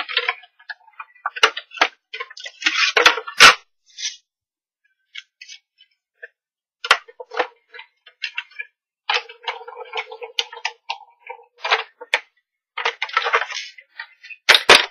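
Big Shot die-cutting machine with a magnetic platform, its cutting plates and die pressed through the rollers and then handled: irregular clicks, cracks and short scrapes of plastic plates and metal, with a sharp crack about three and a half seconds in and a pause between about four and six and a half seconds.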